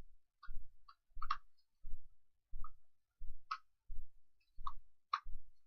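Light plastic clicks and taps of battery compartments being handled and opened, several irregular clicks. Beneath them runs a steady low thud about every three quarters of a second.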